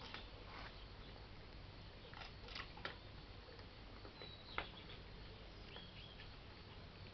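Small birds chirping sparsely: a few short high chirps a little after two seconds, a sharper falling one about four and a half seconds in, and two more near six seconds, over faint steady background hiss.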